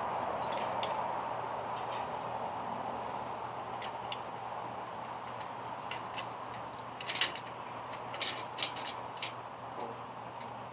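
Scattered light clicks and taps of ceiling fan parts being handled, loudest in a small cluster about seven seconds in, over a steady hiss that slowly fades.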